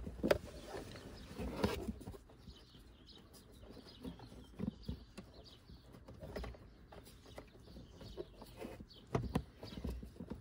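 Pleated cabin air filter being worked into its plastic housing behind the glovebox: scattered light knocks, clicks and scrapes of the filter's frame against the plastic. The knocks bunch up near the end.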